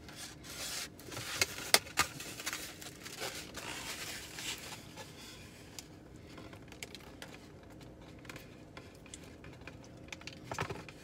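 Crinkling, rustling and sharp little clicks of a foam takeout box and its plastic sauce cup being handled inside a car cab, busiest in the first few seconds and then quieter and sparser.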